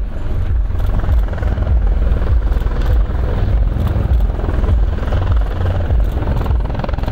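Two Eurocopter EC120 Colibri helicopters hovering low close by. Their rotors and turboshaft engines make a steady loud noise, with a strong, uneven low rotor beat underneath.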